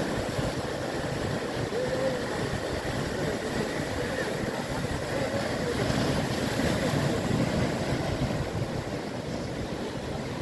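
Steady sea noise of surf washing along the shore, with wind rumbling on the microphone.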